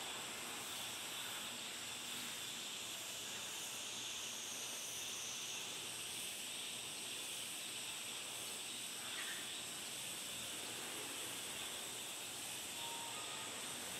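Steady outdoor background hiss, strongest in the high range, with no distinct events apart from a faint short chirp about nine seconds in.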